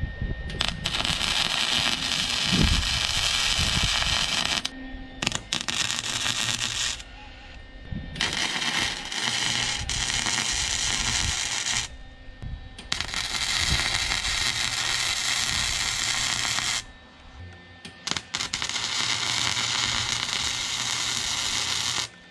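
Electric arc welding of railroad spikes onto a steel plate: a steady sizzling crackle of the arc in about five runs of a few seconds each, stopping briefly between welds.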